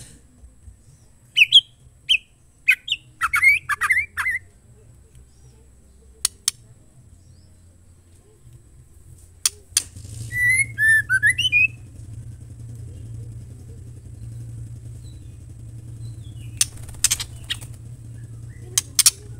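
White-rumped shama calling: a cluster of sharp chirps and harsh call notes in the first few seconds, then a short run of whistled notes about ten seconds in, with scattered sharp clicks in between.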